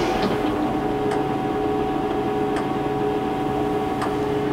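Blanchard 22K-42 rotary surface grinder's chuck drive and six-speed gearbox running in the 12 RPM chuck speed, with the grinding spindle off. It makes a steady hum of several held tones, with a faint tick about every second and a half; the highest tone drops out near the end.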